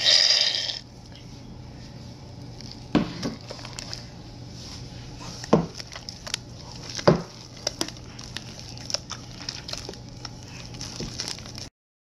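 An aerosol can of shaving foam hisses briefly at the start. Then hands squish and knead sticky slime mixed with the foam, making wet squelches and pops, the loudest a few seconds in. The sound cuts off suddenly near the end.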